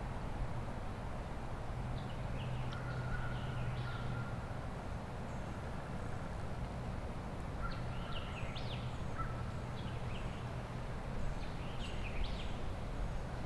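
Songbirds singing in short chirping phrases, in three bouts a few seconds apart, over a steady low hum of background noise.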